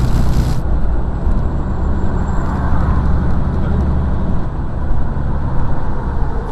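Steady low rumble of a truck's engine and road noise, heard inside the cab while it drives at highway speed.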